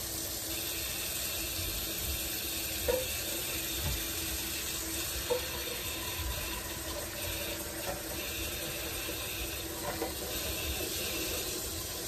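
Kitchen tap running a steady stream into a stainless steel pot of water in the sink, with a few light knocks as eggs are set into the pot.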